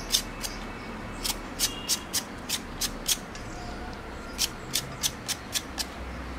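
Metal vegetable peeler scraping the skin off a raw potato: short, quick rasping strokes about three a second, in irregular runs with a brief pause in the middle.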